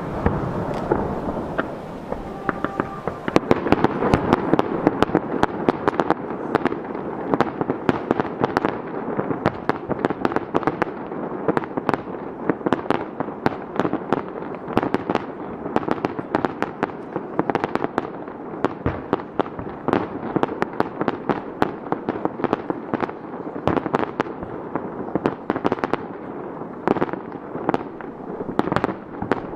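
Aerial fireworks display: a dense barrage of shell bursts and crackling, many bangs a second over a steady rumble, growing thicker about three seconds in.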